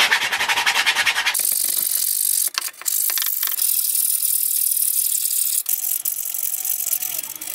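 Sandpaper, 100 grit, rubbed by hand on 3D-printed plastic parts. It starts with quick rasping back-and-forth strokes, then settles into a steadier high hiss of continuous rubbing, broken briefly a little after two seconds.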